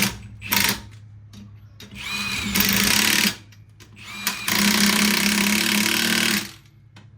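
Pneumatic impact wrench running in bursts: a few short ones, then two longer runs of about one to two seconds each, typical of lug nuts being run on while wheels are mounted.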